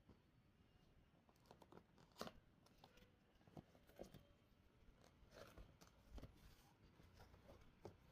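Faint, irregular handling sounds of unboxing packaging: scattered taps, scrapes and short rustles, starting about a second in.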